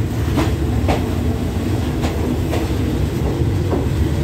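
Passenger carriage of a Thai express train rolling along a station platform. A steady low rumble is broken by five sharp clicks at uneven spacing as the wheels pass over rail joints.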